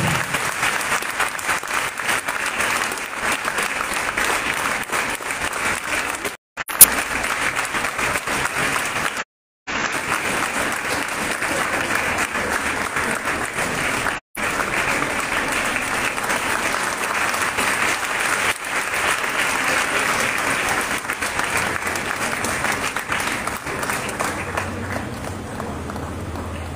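Audience clapping steadily, dying down near the end. The sound drops out briefly three times.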